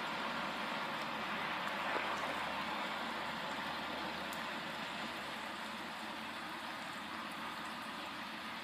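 Diesel multiple unit's engine idling: a steady rumble and hiss that slowly gets quieter.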